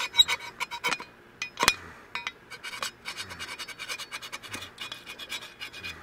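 Steel blade of a folding survival shovel scraping in short repeated strokes, a few a second, with a faint metallic ring.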